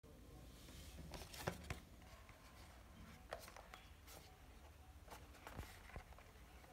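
Several faint clicks and taps of fingers handling a cardboard retail box as it is turned over in the hands, over a low steady room hum.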